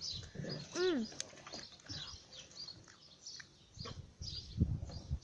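Small birds chirping in short high calls, scattered through the background, with one short rising-and-falling call about a second in. A few low thumps sound near the end.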